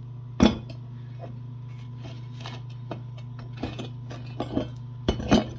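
Metal knocks and clinks from a cast-iron part being handled and turned over: one sharp knock about half a second in, light taps in the middle, and a few more knocks near the end, over a steady low hum.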